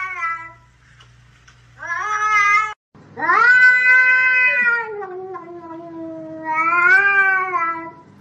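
Domestic cat meowing in a series of drawn-out, wailing meows: a short one about two seconds in, then a long one from about three seconds that sinks lower and swells again before fading near the end.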